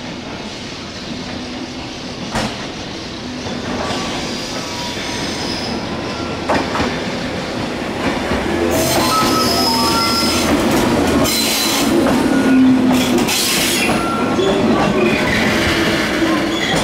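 A JR West 105 series two-car electric train pulls slowly into a station, growing louder as it approaches. A couple of sharp knocks come as the wheels cross rail joints. High-pitched squealing is strongest from about nine to fourteen seconds in, as the train slows to stop.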